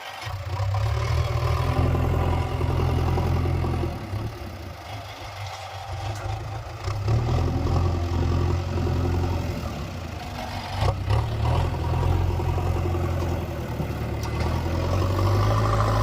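Heavy diesel engine running, its sound swelling and easing off several times as it works, with a few sharp knocks a little past the middle and near the end.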